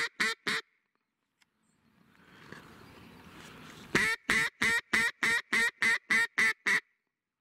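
Echo single-reed, Arkansas-style duck call blown in quick, evenly paced runs of quacks. There are a few quacks at the start, then about ten more from about four seconds in, roughly three or four a second. Between the two runs there is a pause with faint background hiss.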